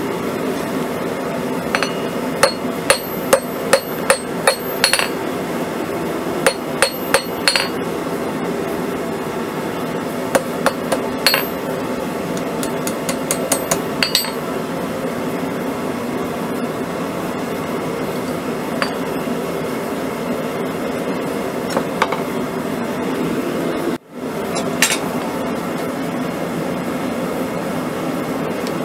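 Hand hammer striking red-hot quarter-inch round steel on a steel-block anvil, each blow a sharp ringing clang. The blows come in quick runs of several through the first half, then a few single blows, over a steady rushing background noise.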